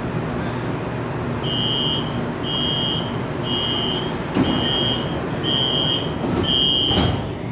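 Door-closing warning on a CSR Zhuzhou AMY light-rail train: six short high beeps about once a second over the car's steady hum, then the sliding doors thud shut near the end.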